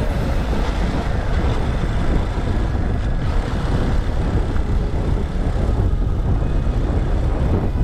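Steady wind rush over a helmet-mounted microphone, mixed with the running of a small dual-sport motorcycle's engine at cruising speed.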